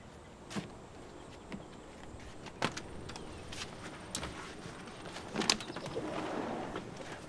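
A few scattered sharp clicks and knocks, the strongest about five seconds in, then a sliding glass patio door rolled open along its track near the end.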